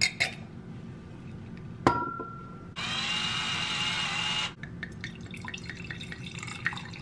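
A wine glass clinks down on a stone countertop, and about two seconds in a knock gives a short glassy ring. An electric wine opener then whirs steadily for under two seconds as it draws the cork. Red wine is then poured and splashes into the glass.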